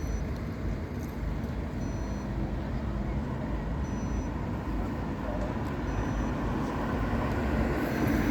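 Steady low outdoor crowd rumble and murmur, with no firework bangs heard; the Bengal flares burning above make no distinct sound.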